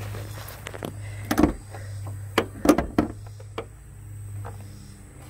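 Several sharp clunks and knocks, the loudest about a second and a half in and near the middle, over a steady low hum.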